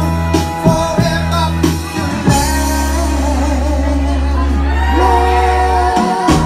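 Soul vocal group singing live over backing music. The beat drops out about two seconds in under a long held low note and sustained voices, then comes back near the end.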